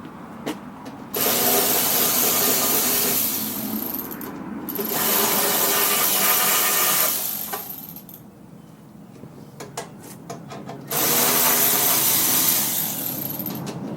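Power driver spinning out the 3/8-inch bolts of a snowblower's belly pan, running in three long bursts. In the gaps between bursts there are short clicks and taps.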